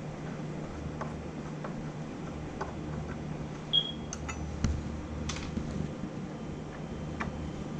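Scattered light clicks and knocks from hands working on a UPS's casing and screws, over a steady low hum. One short high-pitched squeak sounds about four seconds in.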